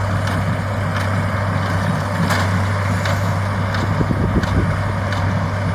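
International Harvester 1026 tractor's turbo diesel engine running steadily under load while baling hay, with scattered clicks and knocks from the working machinery.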